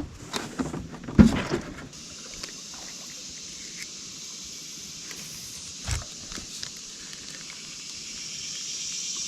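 Knocks and clatter of handling fish and gear in a jon boat, loudest about a second in, with another thud near the middle. Under them, from about two seconds in, a steady high hiss slowly grows louder.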